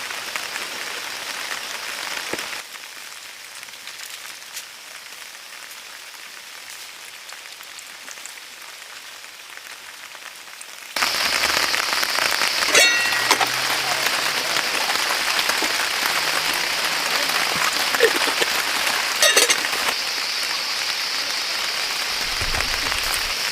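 Steady rain, an even hiss that drops quieter about two and a half seconds in and comes back louder about eleven seconds in, with a few sharp ticks of drops.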